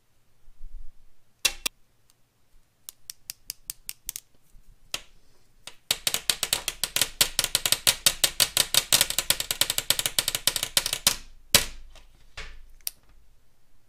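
Plastic glow sticks clicking and clattering on a hard surface: a few sharp knocks, then a fast run of clicks for about five seconds, and another knock near the end.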